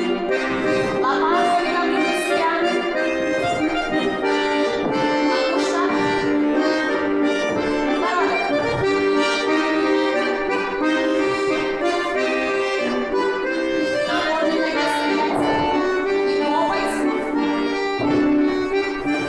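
Accordion playing a folk-dance tune without a break, as accompaniment for barre exercises.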